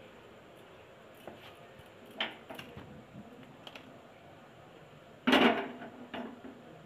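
Kitchen handling knocks, then about five seconds in a loud metallic clunk with a short ring as an aluminium pressure cooker is set down on the grate of a stainless steel gas stove.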